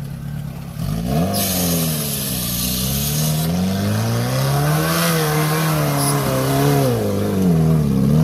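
Off-road 4x4's engine idling, then revved up and down over and over from about a second in, its pitch rising and falling in repeated swells. A loud hiss joins for about two seconds soon after the revving starts.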